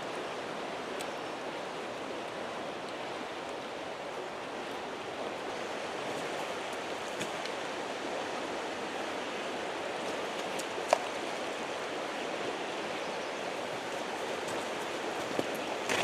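Steady rush of a wide, shallow creek flowing over a rocky bed, with one sharp tap about eleven seconds in.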